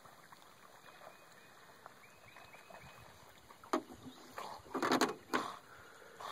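A dog swimming in a pond: faint water sloshing, then a cluster of louder splashes about four to five and a half seconds in.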